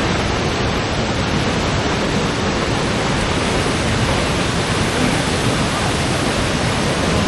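Waterfall pouring into its pool, a steady, loud rush of water with no breaks.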